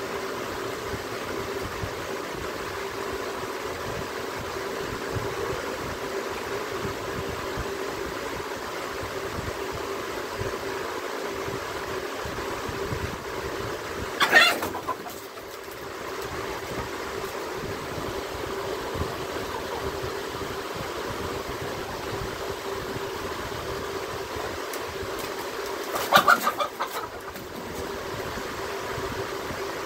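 Chickens calling: two short, loud squawks about twelve seconds apart, over a steady low hum.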